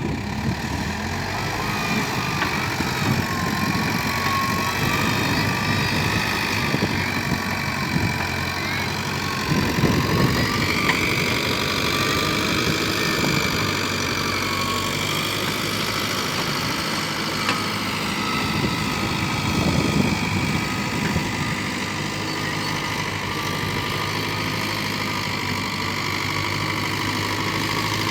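Tata JD315V's engine running steadily at idle during a test after a transmission repair, with a faint wavering whine above it and slight swells about ten and twenty seconds in.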